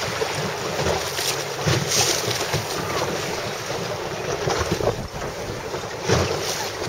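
Gusty wind buffeting the microphone over the wash of choppy sea water.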